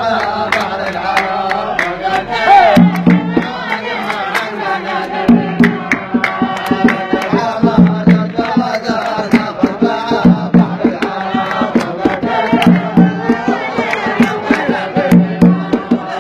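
Men chanting a dan song together over a steady hand-drum rhythm, with sharp percussive strokes and deep drum beats that come in about three seconds in.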